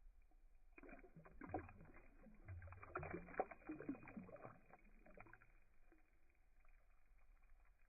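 Faint, slowed-down water splashing and sloshing as a smallmouth bass is let go into the water. A few seconds of irregular splashes start about a second in and die away after about five seconds.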